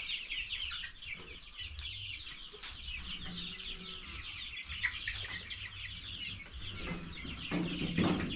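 A flock of young chicks peeping continuously, many overlapping high chirps, with a single knock near the end.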